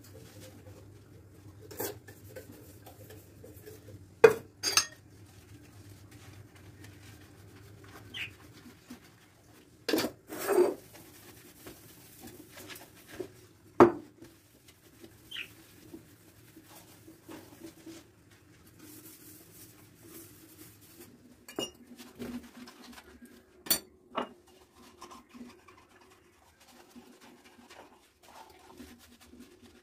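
Dishes and cutlery being handled: scattered sharp clinks and knocks, a few much louder than the rest, over a faint steady hum.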